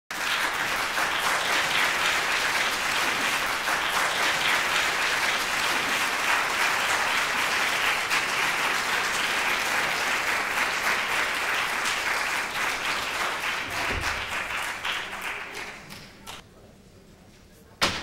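Audience applauding, the clapping dying away about fifteen seconds in. A single sharp bang follows near the end.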